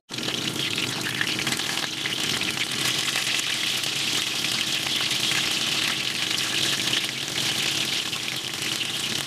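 Battered mushrooms frying in hot oil in a frying pan: a steady sizzle with small crackles.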